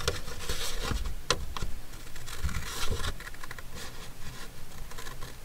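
Small scissors cutting through thick fibrous paper: irregular scraping snips with paper rustling, and a sharper snip about a second in.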